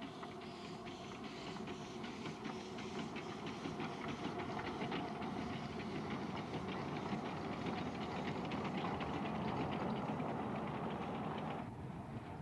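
10¼-inch gauge miniature steam locomotive pulling away with its cylinder drain cocks open: a hiss of steam with a regular chuff of exhaust beats that quickens as it gathers speed. The sound drops suddenly about a second before the end.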